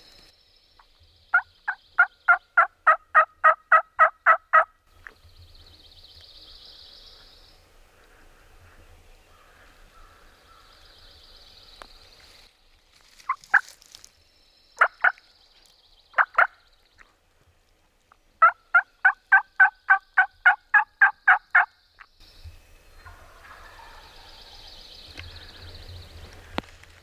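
Turkey yelping: two runs of about a dozen evenly spaced loud yelps, roughly three a second, with a few single yelps in between. A faint high chirring sits in the background.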